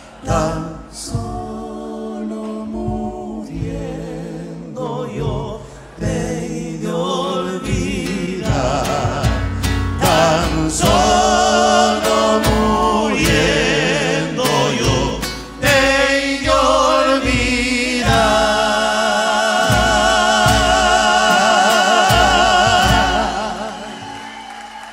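Live Argentine folk music: three men singing in harmony over acoustic guitars and a bombo legüero drum. The song ends on a long held chord with vibrato, sung over a dense run of drum strokes, which stops about a second and a half before the end.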